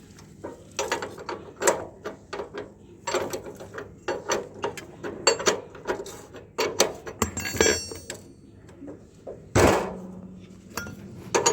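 Metal parts of a motorcycle rear wheel and drum brake clinking and knocking as they are refitted, with a cluster of metallic rattles and one heavy thump near the end.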